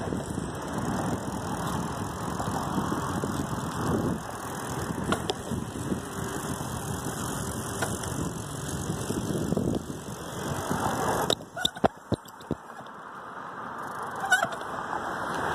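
Wind rumbling on a handheld phone's microphone while riding a bicycle. About eleven seconds in it drops off sharply, with a few sharp clicks, then builds back up.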